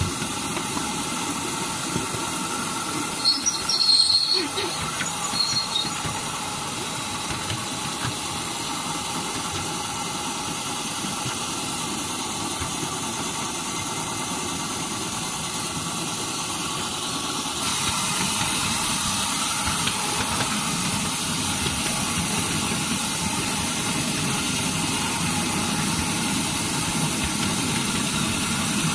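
Ride-on miniature railway train running along its track, a steady rumbling and hissing running noise from the wheels and drive. A brief high-pitched wheel squeal comes a few seconds in, and the running noise grows louder about two-thirds of the way through.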